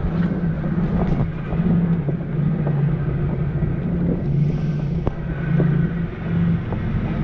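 Off-road vehicle's engine running at low speed, its hum swelling and easing, with scattered knocks and rattles from the vehicle jolting over a rough trail.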